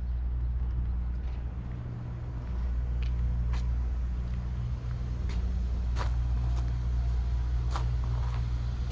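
Steady low hum of an idling engine, with footsteps on pavement clicking in from about three seconds in.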